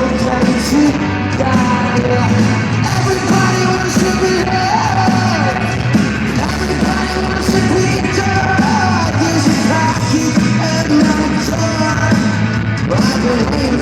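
Live rock band playing loudly through an arena PA, with a singer's voice over guitars, bass and drums.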